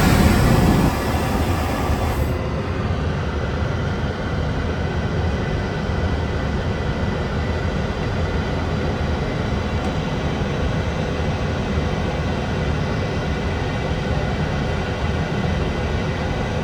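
Steady cabin noise of a Boeing 737-900 airliner in flight: an even roar of engine and air noise. A brighter hiss at the start cuts off about two seconds in.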